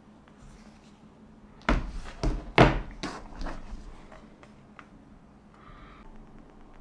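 Hard knocks and taps as an iPad Pro and a MacBook Pro are handled against each other on a desk: three sharp knocks close together about two seconds in, then a few lighter clicks.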